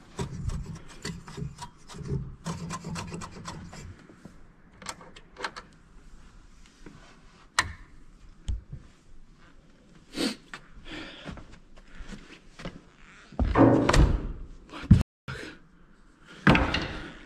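Clicking and rubbing of an old two-manual organ's keys and stop tabs being pressed and flipped by hand, a string of short clicks, with a few louder scuffs and knocks near the end.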